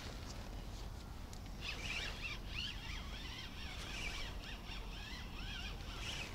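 Small birds chirping and twittering, many short high calls overlapping, over a steady low rumble.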